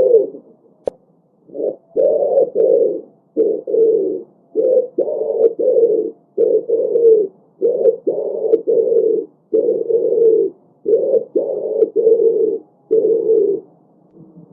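Pigeons cooing: low, throaty coos repeated over and over in short phrases of two or three pulses, about every second and a half. A single sharp click about a second in.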